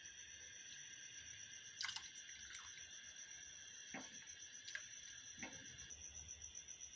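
Faint stirring of milk thickened with cornflour in a nonstick saucepan with a silicone spatula, with a few soft clicks and wet sounds, over a steady high-pitched hum.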